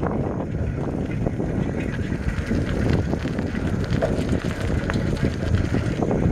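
Wind buffeting the microphone of a moving camera: a steady low rumble with irregular flutter.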